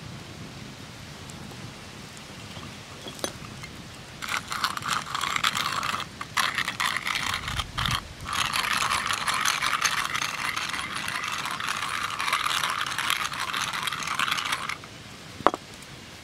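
Hand-turned spice mill grinding seasoning over a raw steak: a dense gritty ratcheting that starts about four seconds in, pauses briefly midway and stops shortly before the end. A single sharp click follows near the end.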